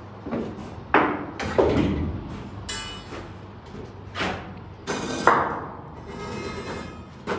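Steel window frame knocking and clanking against the corrugated steel wall of a shipping container as it is worked into its opening. There are several separate metal knocks, one of them ringing brightly.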